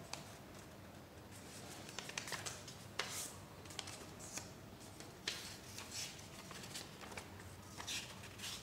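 Sheets of paper being handled, folded and creased by hand: irregular short rustles and crinkles with a few sharp crisp snaps, over a faint steady hum.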